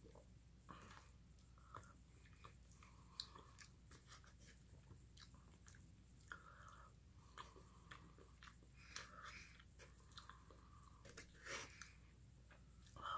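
A person chewing and biting food, quietly, with many short wet mouth clicks throughout.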